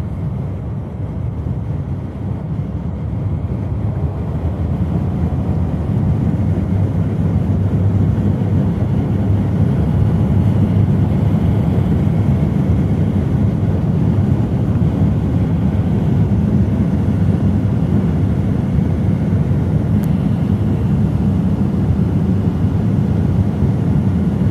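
Road and wind noise of a car driving at highway speed, heard from inside the car: a steady low rush that grows louder over the first few seconds, then holds steady.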